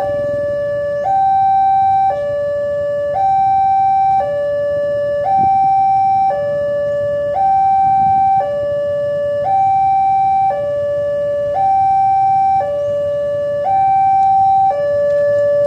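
Two-tone hi-lo siren, a lower and a higher note alternating about once a second each in a steady, even cycle.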